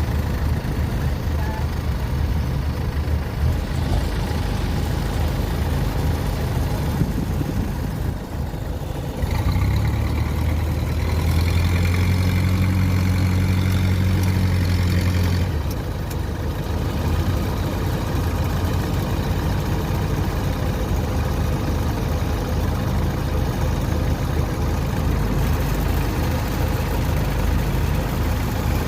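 Kubota DC-93 combine harvester's diesel engine running steadily. About a third of the way in it is revved up, louder and higher for about six seconds, then drops back to its lower running note.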